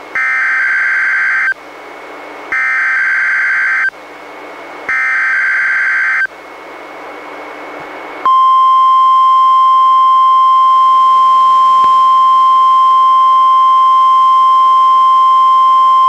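NOAA Weather Radio Required Weekly Test on a Reecom R-1630 weather radio. Three short screeching SAME digital header bursts sound about a second apart. About eight seconds in, the steady 1050 Hz warning alarm tone starts and holds.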